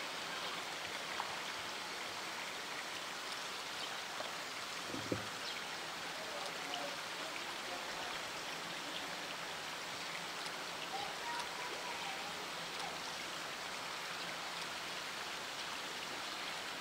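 Steady rush of running water, with one soft low thump about five seconds in.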